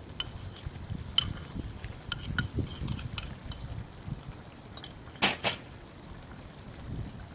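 Metal kitchen utensils clinking against cookware: scattered light clinks, with two sharper clinks close together about five seconds in.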